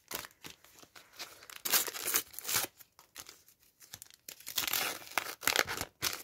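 A Topps sticker packet being torn open by hand, its wrapper crinkling and rustling in irregular bursts, loudest about two seconds in and again toward the end.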